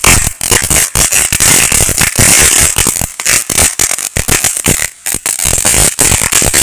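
Homemade firework fountain, packed with powder from chatar-patar crackers, burning with a loud hissing, crackling spray of sparks that dips briefly several times.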